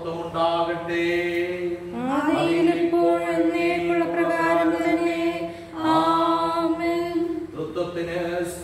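A man chanting a liturgical prayer unaccompanied, in long held notes, sliding up to a higher sustained note about two seconds in.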